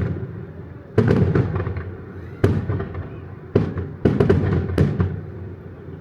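Aerial fireworks shells bursting in quick succession during a grand finale barrage. Sharp booms come about once a second, each trailing off in a rolling echo, with a tight cluster of bursts about four seconds in.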